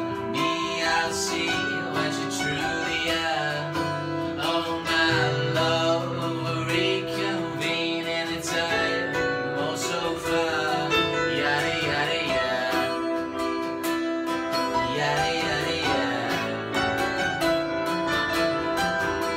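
Live acoustic duo music: an acoustic guitar strummed together with an electric keyboard playing chords.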